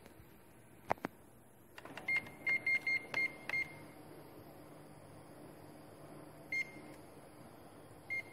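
Operation-panel key beeps on a Ricoh Aficio MP C2500 copier: a quick run of six short, identical high beeps as keys are pressed to call up service (SP) mode, then two single beeps later on. A couple of sharp clicks come about a second in, and a low steady hum from the machine starts just before the beeps.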